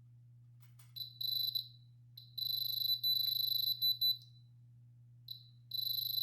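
Electronic diamond tester beeping in a high steady tone, in runs of longer beeps broken by quick stuttering ones as the probe touches the bracelet's stones. The beep is the tester's signal that a stone reads as diamond.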